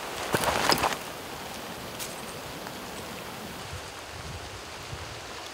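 A short burst of rustling in the first second, then a steady, even outdoor hiss with no distinct events.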